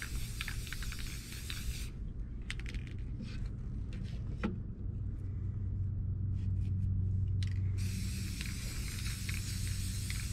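Aerosol spray paint can hissing as paint is sprayed through a plastic stencil. The hiss stops about two seconds in, with a few light clicks and rustles while the stencil is moved, and starts again about eight seconds in.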